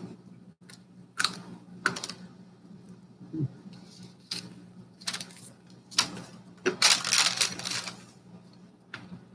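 A stick of old 1989 baseball-card pack gum being bitten and chewed: short, irregular crunching and cracking bursts, with a longer run of crackling about seven seconds in.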